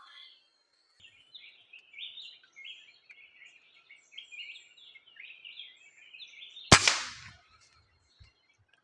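Small birds chirping in quick, short notes, then about seven seconds in a single sharp crack from a PCP air rifle shot (5.52 mm, 18-grain pellet), followed by a few faint low knocks.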